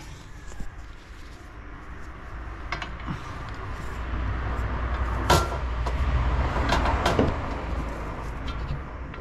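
A motor vehicle passing, its low rumble swelling over a few seconds and fading again. Over it come light clicks and taps of small metal parts being handled as the expansion valve is fitted, with one sharp click about five seconds in.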